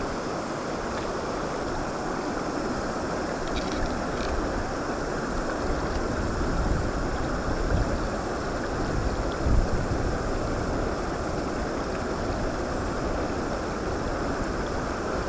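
Shallow stream running steadily over stones, with low wind rumble on the microphone at times and a few light splashes of hands in the water.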